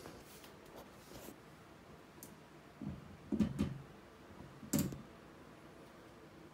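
A few light clicks, then dull thumps about three seconds in and a sharp knock near five seconds: a hand tool knocking and working against the sink drain fitting inside the cabinet.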